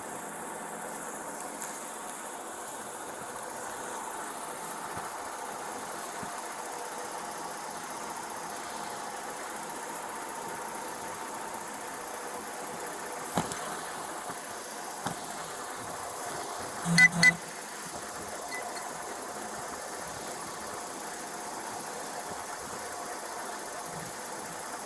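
Steady hum of an idling car engine, with one sharp click about halfway through and a brief louder sound a few seconds later.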